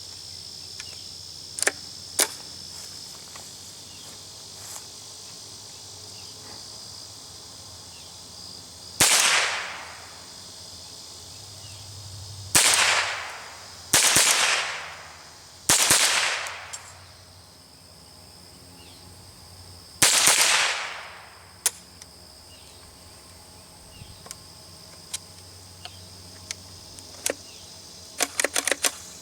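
A Henry AR-7 survival rifle in .22 LR fired five times at irregular spacing, each report followed by a ringing tail of about a second. These are test shots with a fresh magazine after a feeding failure with copper-plated hollow-point ammunition.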